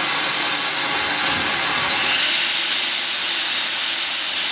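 Steam hissing steadily and loudly from a BR (W) 0-6-0 pannier tank steam locomotive, No. 1638.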